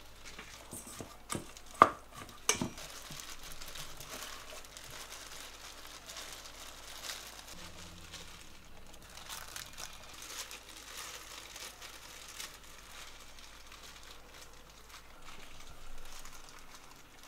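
Plastic crinkling and rustling from handling food with a disposable plastic glove, with a few sharp knocks about two seconds in, the loudest sounds here.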